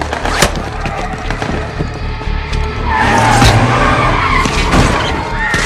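A car speeding and skidding, its tyres squealing in wavering glides from about three seconds in, over a low engine drone. A few sharp cracks stand out, one near the start and one near the end.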